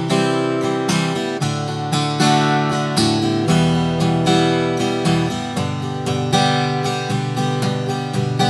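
Steel-string acoustic guitar strummed in a steady pattern, changing chords from C to D to E minor and back to G.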